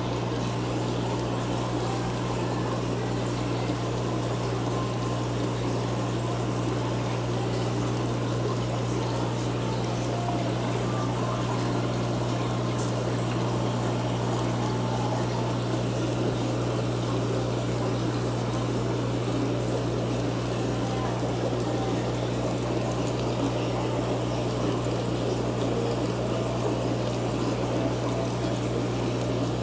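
Aquarium equipment running steadily: a constant low pump hum under water trickling and bubbling in the tank.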